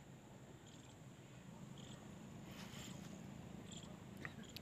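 Faint open-field ambience: a steady high-pitched insect trill, with a few faint short chirps scattered through it.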